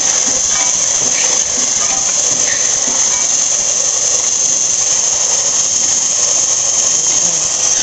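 A WWII-era ammunition case machine running steadily at about 45 pieces a minute: continuous mechanical clatter of its cams, levers and spindle over a constant high-pitched hiss.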